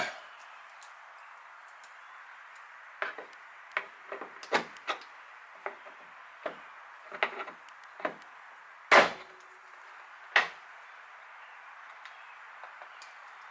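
Small metal parts and a small screwdriver clicking and knocking while a spring-clipped assembly is pried apart by hand: about a dozen sharp ticks, with two louder knocks near the end of the run.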